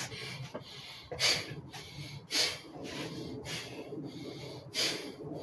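A man breathing hard after heavy-bag work, with four sharp, hissing exhales about a second apart.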